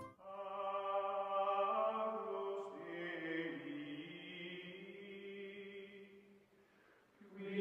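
Outro music of long-held, chant-like choral chords. It fades away about six seconds in, and a new chord begins just before the end.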